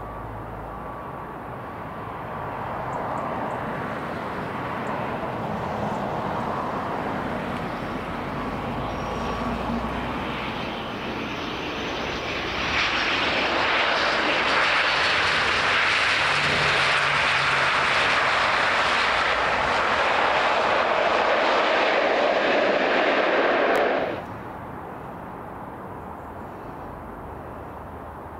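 ATR 72-600 turboprop airliner's twin Pratt & Whitney PW127M engines and propellers on final approach and landing. It is a rushing drone that grows louder as the aircraft comes in, is loudest from about halfway through as it passes close at touchdown, then cuts off suddenly about 24 seconds in.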